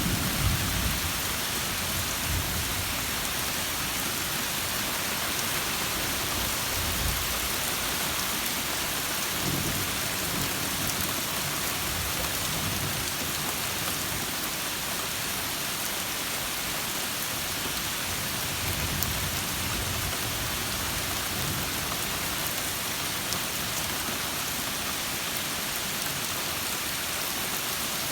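Steady rain falling, with low rumbles of thunder swelling up several times.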